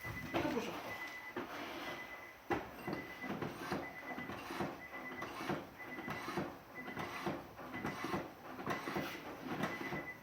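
Rhythmic mechanical clicking and knocking, about two strokes a second, with a short high beep that keeps repeating.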